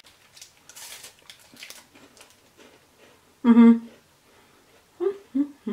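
A woman's voiced 'mmm' while tasting a chocolate-coated mint wafer bar: one loud hum about three and a half seconds in, then a couple of shorter hums near the end. Faint crackling is heard in the first couple of seconds.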